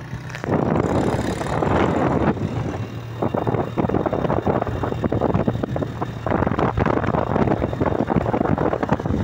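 Motorcycle engine running at speed under heavy wind buffeting on the phone's microphone, getting suddenly much louder about half a second in.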